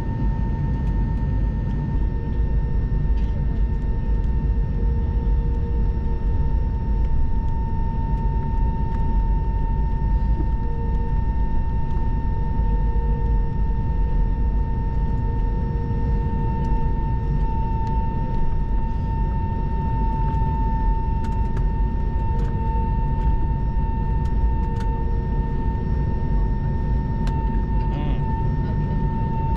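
Airbus A321neo jet engines at low power heard from inside the cabin while the airliner taxis: a steady low rumble with a constant high whine over it.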